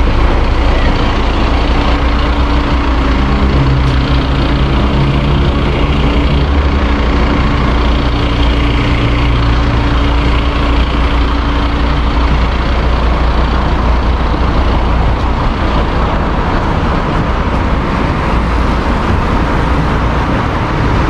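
Fire engine running with a steady low rumble; an engine hum within it drops away about twelve seconds in.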